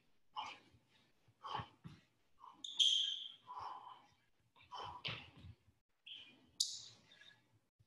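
Short, sharp exhalations and light footwork from a boxer shadow boxing, a burst about every second. There is a brief high-pitched squeak about three seconds in.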